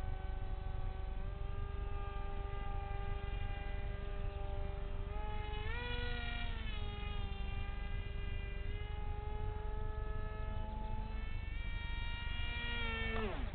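Electric motor and 6x4 propeller of a scratch-built RC F-22 park jet whining in flight, its pitch rising and falling with throttle and passes. Near the end the pitch drops steeply and then jumps back up. A low rumble lies under it throughout.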